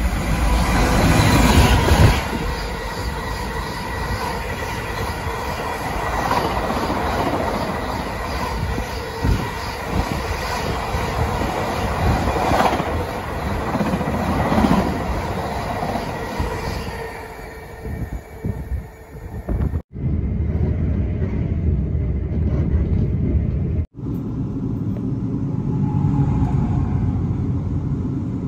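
Class 66 diesel locomotive running through at speed at the head of a freight train. The loudest moment comes as the locomotive passes in the first couple of seconds, followed by the long run of wagons clattering by with wheel ringing and squeal, fading out after about seventeen seconds. After two abrupt cuts, a container freight train rumbles past more steadily.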